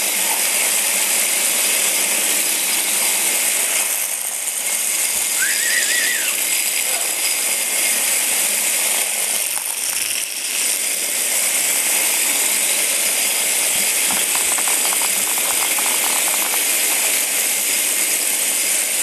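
Several Hexbug Bobble Bot vibrating toys buzzing and rattling across a hard kitchen floor as a steady high-pitched rattle. A short high squeak comes about six seconds in, and a quick run of ticks around fifteen seconds in.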